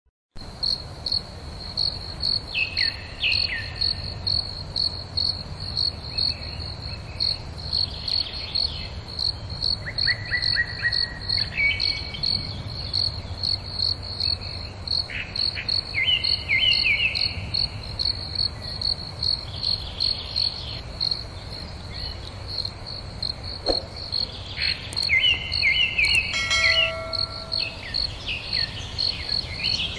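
A cricket chirping in a high, evenly pulsed rhythm, with birds calling over it in short twittering runs that fall in pitch.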